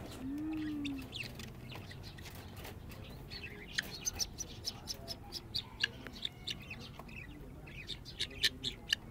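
Small birds chirping: a run of short, sharp chirps that grows denser from about three and a half seconds in. A brief low hum comes near the start.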